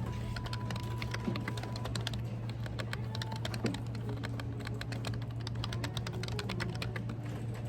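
Typing on a computer keyboard: a quick, irregular run of keystroke clicks, over a steady low hum.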